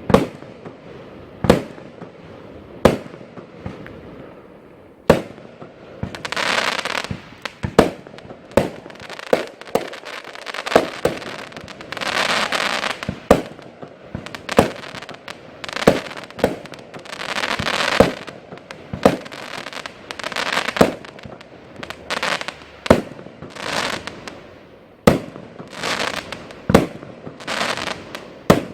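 Category F2 consumer fireworks going off in a steady series: sharp bangs about once a second, with swells of hissing crackle between them.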